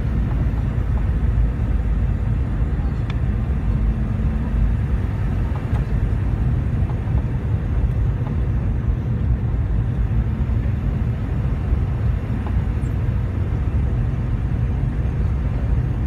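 Boeing 717 cabin noise on approach: a steady low rumble of airflow and its two rear-mounted Rolls-Royce BR715 turbofans, with a faint steady hum that fades in and out.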